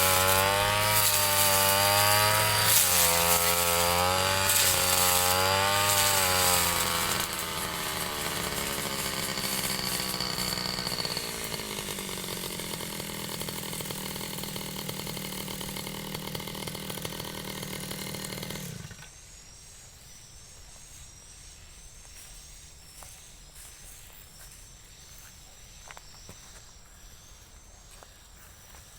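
Ryu 30.5 cc two-stroke brush cutter running at high revs, its pitch rising and falling as it works. About seven seconds in it eases off and slows to idle, then cuts off suddenly after about nineteen seconds. Faint insects chirping remain.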